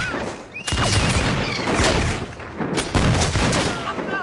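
Film battle sound: dense gunfire from many guns, shots overlapping in rapid volleys, dipping briefly twice and coming back loud.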